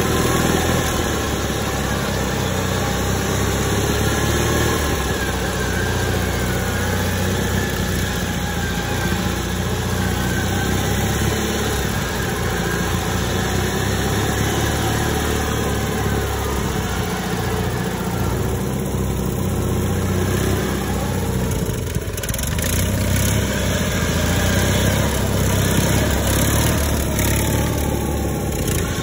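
Engines of modified off-road riding lawnmowers running steadily, their pitch rising and falling as the throttle is worked while the machines crawl over rocks.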